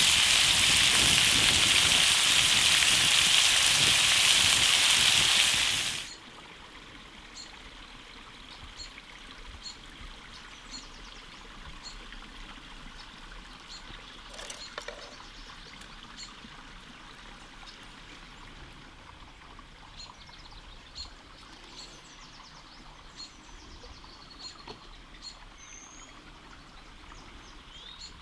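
Loud rushing water for about six seconds that cuts off suddenly, then quiet outdoor ambience with scattered faint bird chirps.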